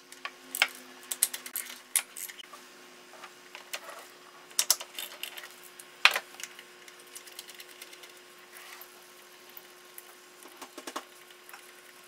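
A 3/8-inch drive ratchet clicking in short irregular runs as a 10 mm bolt is loosened, with a few louder metal clicks, over a faint steady hum.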